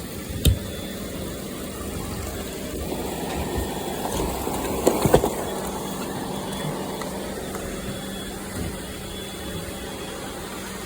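Robot vacuum running with a steady motor hum and brush whir, with a sharp knock about half a second in and a short burst of knocks and rattles about five seconds in.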